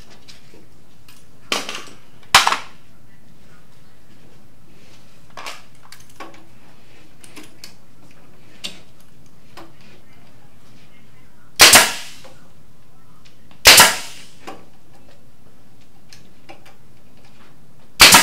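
Pneumatic staple gun firing staples into a cabinet side panel: four sharp shots. The first comes about two seconds in, the next two about two seconds apart past the middle, and the last at the very end, with light knocks of the tool being moved and set between them.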